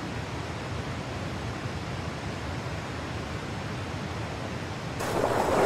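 Steady rush of water pouring over river rapids. About five seconds in it jumps suddenly to a louder, brighter rush.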